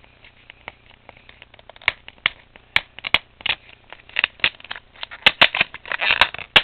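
Plastic Blu-ray case being handled while its sticker seal is picked at and peeled off the edge: a run of sharp clicks and crackles, sparse at first and coming thicker over the last couple of seconds.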